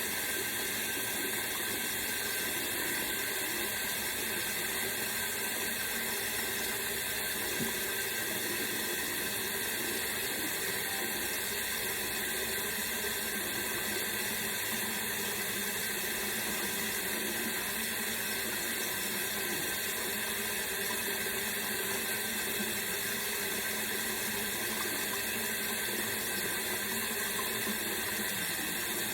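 Tap water running steadily into a sink while hair is rinsed under it.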